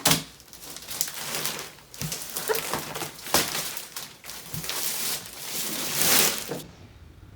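Handling noise: rustling with a run of sharp knocks and clicks as things are moved about, stopping abruptly near the end.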